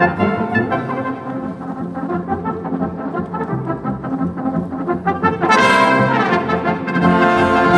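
Brass band playing live, with cornets carrying the tune over lower brass. About five and a half seconds in, the band swells louder and brighter with falling runs of notes.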